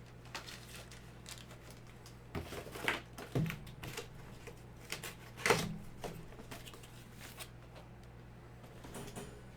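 Packaging being handled and opened: scattered clicks, taps and rustles, with a few louder knocks around the middle, over a faint steady hum.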